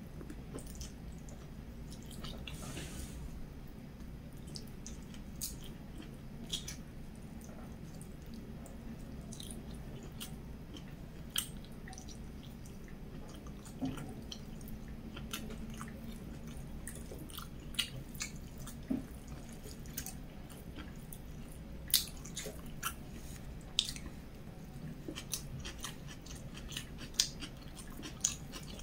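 Close-up chewing of rice and omelette eaten by hand, with many short wet mouth clicks and smacks scattered throughout over a steady low hum.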